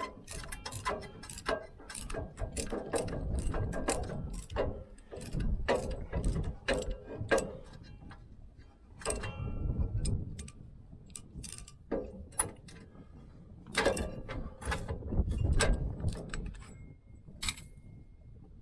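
Ratchet wrench clicking and metal tools knocking during work on a van's rear brake caliper, in irregular runs of sharp clicks with short pauses.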